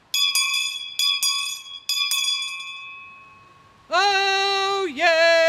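Town crier's handbell rung in three pairs of strokes, each ringing on and fading away. About four seconds in, the crier, a woman, starts the drawn-out call of "Oyez", with a second call just after.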